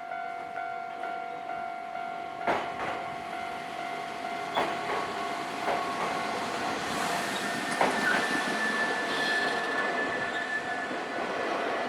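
Level-crossing warning bell ringing in a steady repeating beat as a Nankai Kada Line train passes over the crossing. The train's wheels knock sharply over the rail joints every second or two, and a high wheel squeal starts about eight seconds in and lasts a few seconds.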